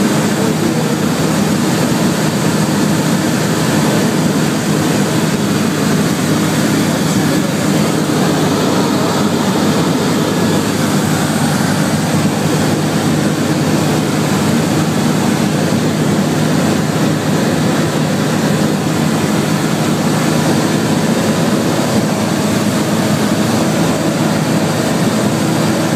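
Zenair 601 light aircraft's piston engine and propeller running steadily in flight, heard from inside the cockpit: a constant low hum over a broad rushing noise.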